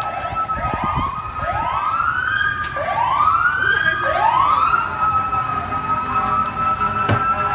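Emergency vehicle sirens: one repeatedly sweeps up in pitch, each rise a little slower than the last, over another steady, held siren tone.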